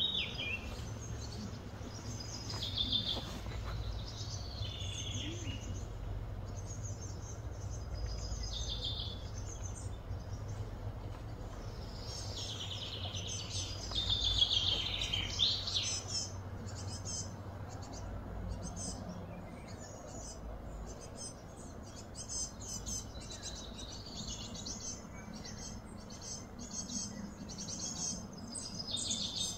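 Birds chirping and calling outdoors, a run of high calls, some sliding down in pitch, with quicker short chirps later on, over a low steady background hum.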